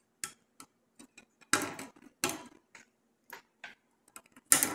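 Cutters snipping the excess leads of soldered through-hole diodes on a circuit board: a string of sharp, irregular clicks, the loudest near the end.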